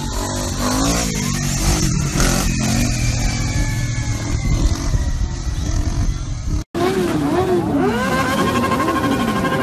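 Motorcycle engines. Sport bikes run before a sudden cut about two-thirds in; after it, several bikes rev up and down in quick repeated blips, and a steady held note sounds under them in the last two seconds.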